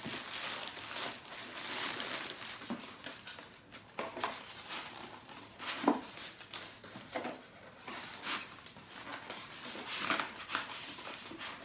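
Cardboard box and plastic wrapping rustling and crinkling in irregular bursts as a waffle maker is pulled out of its packaging, with one sharp knock about six seconds in.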